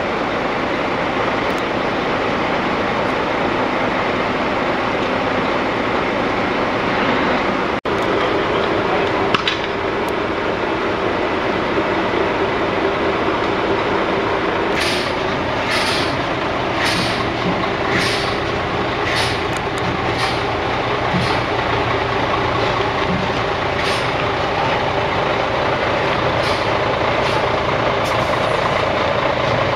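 Heavy recovery truck's diesel engine running steadily. In the second half comes a run of short, sharp hiss-like sounds, roughly one a second.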